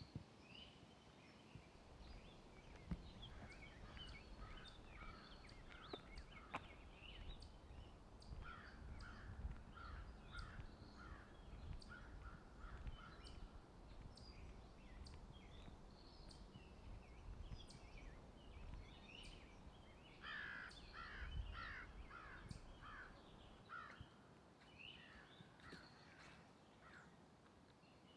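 Forest birds calling, with quick runs of repeated caw-like notes, the strongest run about two-thirds of the way in. Faint footsteps on a trail sound underneath and stop a few seconds before the end.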